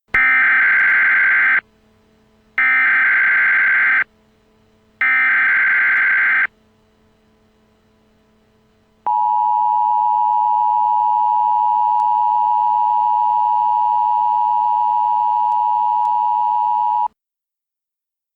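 Emergency Alert System signal: three loud SAME digital header bursts of about a second and a half each, a second apart, then the two-tone EAS attention signal held steady for about eight seconds before it cuts off.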